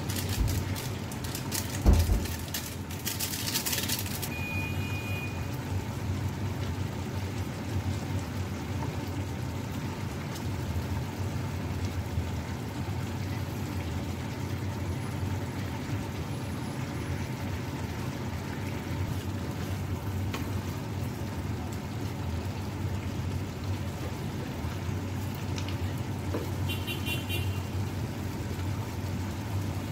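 Steady low background rumble, with a single thump about two seconds in and a brief bright crinkling rustle just after it.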